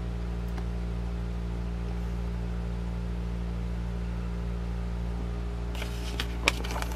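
Steady low room hum, with a few light paper rustles and soft taps near the end as a hand touches the pages of an old book.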